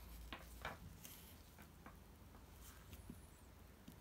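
Near silence, with a few faint clicks and light taps as a phone is handled in gloved hands.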